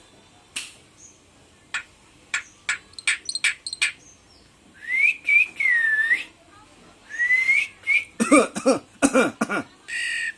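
Pet common myna calling: a run of sharp clicks, then two whistled notes that rise and dip, then a burst of rapid pitched chatter near the end.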